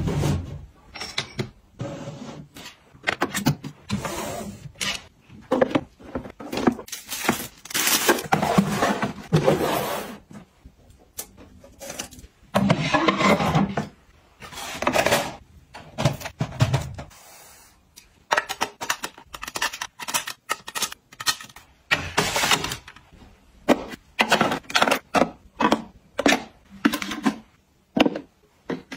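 Close-up handling of office and storage organizers: items knocked and set down on shelves, slid into place and clicked into plastic and metal holders, in short uneven bursts with brief pauses.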